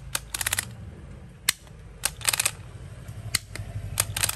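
Ratcheting clicks from a DeWalt DCD999 cordless drill's keyless chuck and front collar being turned by hand. Single clicks alternate with short quick runs of clicks, about three runs in all.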